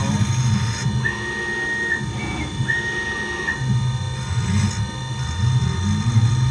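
Tormach 440 CNC mill milling a wooden workpiece: a low running hum, with a high steady whine from the axis moves that glides up, holds for about a second and glides off, twice.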